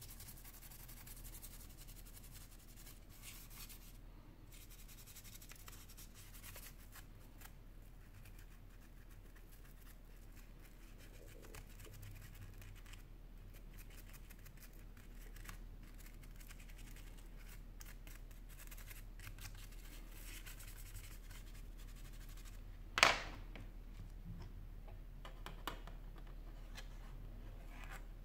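A metal-tipped pry tool scraping and picking at the inside of a Sony Xperia Z3 Compact's frame, giving faint scratches and small clicks. There is one sharp, loud click about five seconds before the end, and a smaller one soon after.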